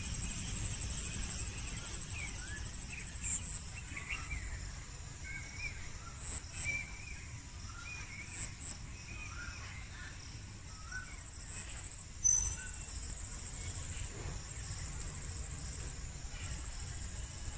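Field ambience: insects trilling steadily at a high pitch, with scattered short bird chirps and a low rumble of wind. One brief louder knock a little past the middle.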